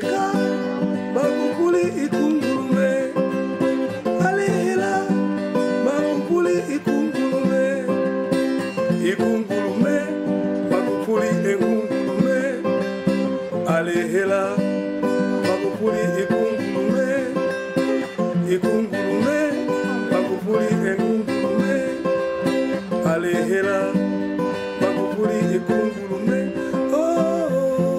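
Background music led by plucked acoustic guitar, with some singing.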